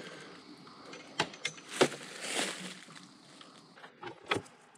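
Handling sounds as coax antenna cable is worked by hand: a few sharp clicks and knocks with a short stretch of rustling and scraping in the middle.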